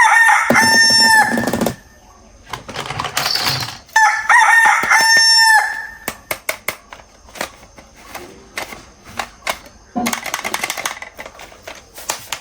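A rooster crowing twice, each crow a long held call, the second about four seconds after the first. Then a run of light, irregular clicks and knocks.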